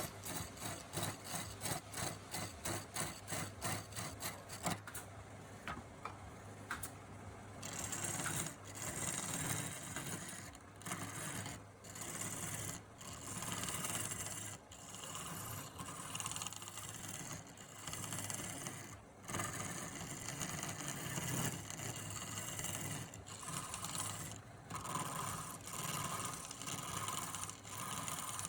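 Wood being worked with a cutting tool: a quick run of rhythmic scraping strokes, about four a second, for the first five seconds, then longer uneven scraping passes broken by short pauses, over a steady low hum.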